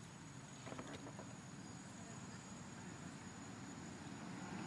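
Faint outdoor background: a low steady rumble that swells near the end, with a thin, steady high insect whine over it and a few soft clicks about a second in.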